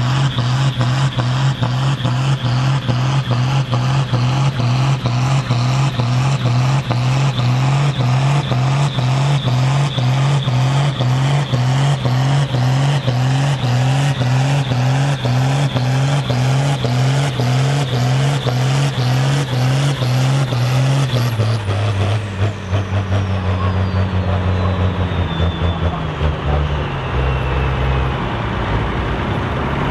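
Ford TW-25 tractor's turbocharged six-cylinder diesel engine running flat out under load as it drags a heavy pulling sledge, with a steady pulse about twice a second. About 21 seconds in the revs drop as the pull ends, the engine slowing and wavering while the turbo's high whine falls away over several seconds.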